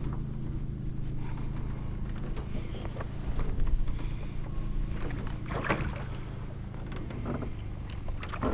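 Handling noise in a small fishing boat while a hooked northern pike is played at the side and the landing net is brought out: scattered clicks and knocks over a steady low hum, loudest about three and a half seconds in and again near six seconds.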